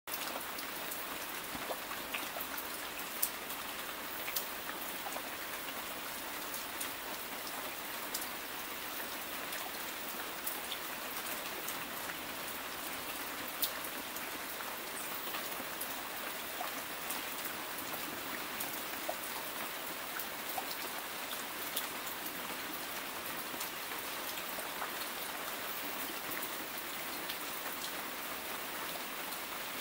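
Steady rain falling through foliage, with single drops hitting leaves as sharp ticks every so often.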